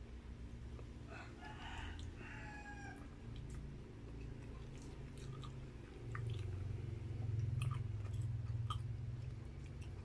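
A rooster crows once in the background about a second in, a pitched call lasting about two seconds. Close-miked chewing, with wet mouth clicks and smacks, gets louder in the second half.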